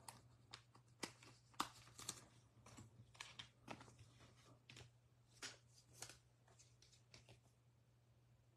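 Baseball trading cards being handled and set down on piles: faint scattered snaps and taps, busiest in the first five or six seconds and thinning out after, over a low steady hum.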